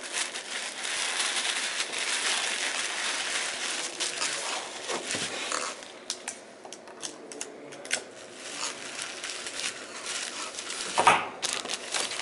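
A steady hissing noise for about the first six seconds, then scattered clicks and crinkling rustles of things being handled.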